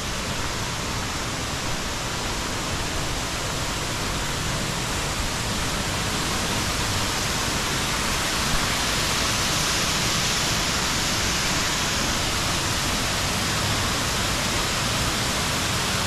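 Steady rush of a small waterfall pouring over a rock ledge into a creek pool, growing gradually louder as it is approached.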